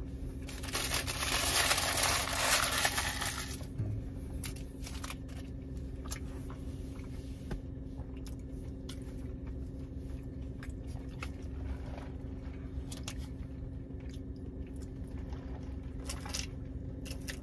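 Paper burrito wrapper crumpled and rustled loudly for about three seconds, followed by quiet eating sounds and scattered small clicks over a steady low hum inside the car, with a sip from a drink cup near the end.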